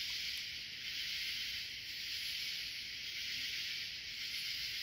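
A steady, high-pitched hiss that holds even and unbroken, with no separate events in it.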